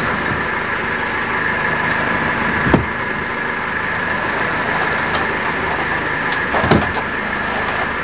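A fishing boat's engine running steadily with a constant whine over its hum. Two sharp knocks stand out, a few seconds apart.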